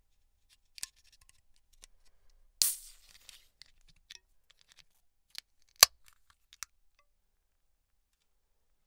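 Aluminium beer can opened by its pull tab: a few light clicks, then the tab cracks open with a short hiss of escaping gas that fades into faint fizzing crackles. Several sharp clicks follow, the loudest about six seconds in.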